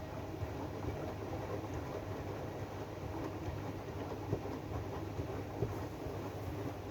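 AEG DualSense washing machine running its Drum Clean cycle: a steady low rumble with a few short knocks.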